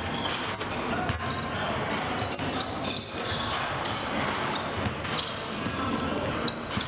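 Basketballs bouncing on a hardwood gym floor during warm-ups, irregular knocks over the steady din of a large hall.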